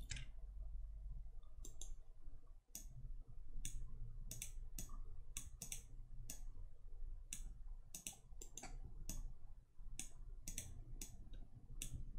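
Computer mouse clicking, irregular single clicks and quick double-clicks, over a faint steady low hum.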